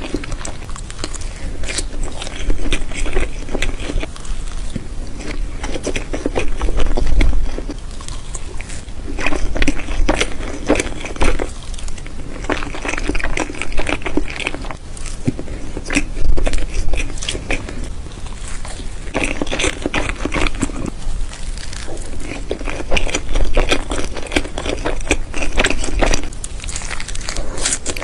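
Close-miked eating sounds of a person chewing soft pancakes: many small wet clicks and crackles of the mouth, coming in uneven clusters.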